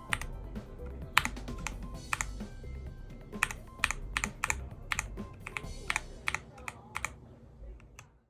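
Keys being typed on the Cyberboard custom mechanical keyboard: a string of separate, unhurried keystrokes with sharp clacks, growing fainter and stopping near the end.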